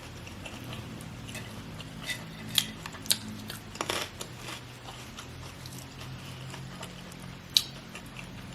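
Close-miked chewing of crunchy food, with a few sharp crunches between about two and four seconds in and another near the end, over a faint steady low hum.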